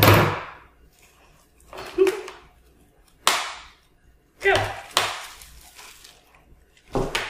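Plastic wrapping being cut and pulled off wooden toddler puzzle boards: a series of short crinkling rips, about six in all, roughly a second apart.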